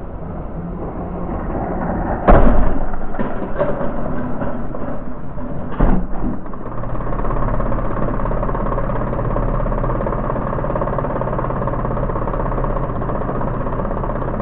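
LEGO train's electric motor running steadily as it drives in, then a loud crash about two seconds in as it hits the freight wagons, with a few plastic clacks after it and a second sharp knock around six seconds in. The motor keeps running steadily afterwards.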